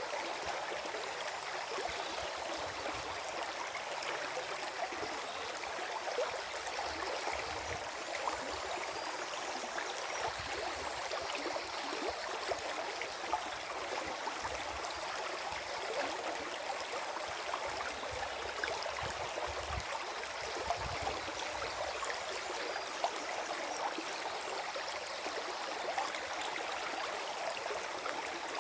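Small forest stream flowing and gurgling over stones, a steady splashing babble.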